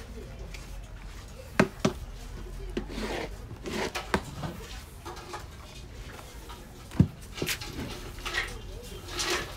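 Wooden paddle working through damp fermented corn dough in a wooden trough: scraping, swishing strokes with several sharp wooden knocks against the trough.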